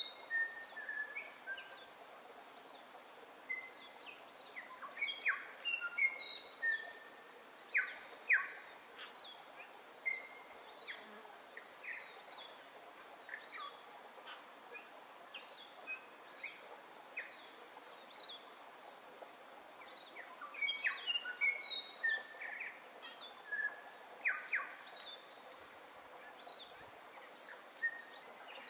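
Several songbirds chirping and calling over a faint steady hiss: many short, sharp notes, with one high, steady note lasting about two seconds a little past halfway.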